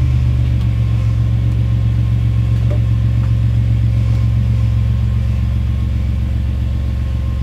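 Van engine running with a steady low drone while the van is driven slowly, heard from inside the cab with the driver's seat out and the floor stripped to bare metal; it eases off slightly about five seconds in.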